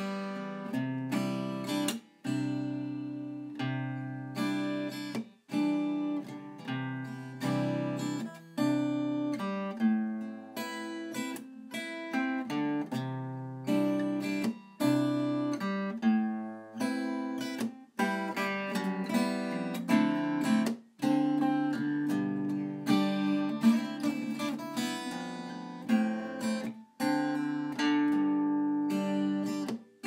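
Instrumental background music on a plucked string instrument: picked notes and chords that ring and fade, with a few brief pauses between phrases.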